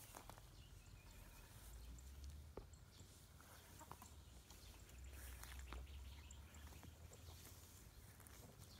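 Near silence: faint rustling of weeds and soft footsteps through tall vegetation, with a low rumble rising twice, about two seconds in and again past the middle.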